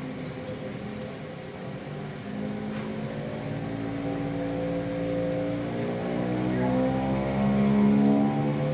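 Turboprop engine of a parked Beechcraft King Air spooling up: a hum made of several pitched tones that climb slowly and grow louder from about two seconds in, as the propeller gathers speed during engine start.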